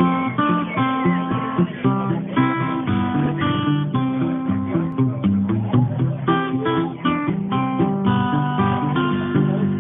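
Solo acoustic guitar playing a picked folk tune, with bass notes under a melody of single plucked notes.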